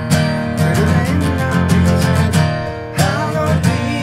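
Two steel-string acoustic guitars strummed together in a steady rhythm, playing a punk song in an unplugged arrangement.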